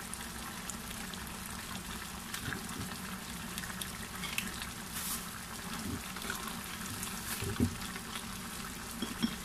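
Menudo stew in tomato sauce simmering in a frying pan on a gas stove: steady low bubbling, with a few small pops.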